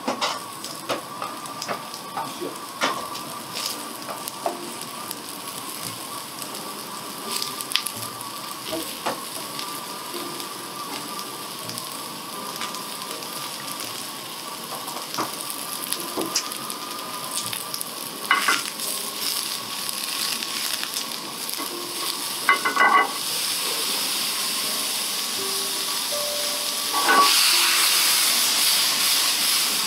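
Sliced mushrooms sizzling as they fry in hot oil in a steel frying pan on a gas burner, with scattered clicks and knocks as they are added and stirred. The sizzle grows louder near the end.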